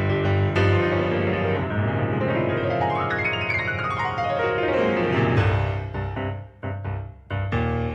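Piano music: held chords, then a fast run of notes that climbs up the keyboard and sweeps back down, ending in short, detached chords.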